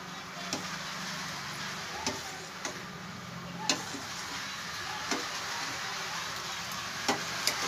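Steel ladle stirring thick dal in a steel pot, with short clinks of the ladle against the pot now and then, over a steady hiss.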